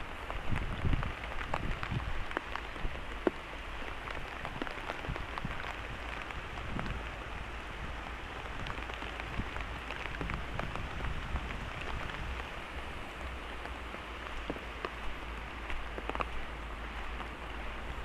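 Steady rain falling, an even hiss dotted with many sharp individual drop impacts, with a few low bumps in the first couple of seconds.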